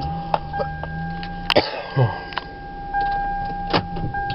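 A car's electronic warning chime, a steady high tone that breaks off briefly and starts again every second or so, over a low steady hum. Several sharp clicks and knocks sound over it, the loudest about one and a half seconds in.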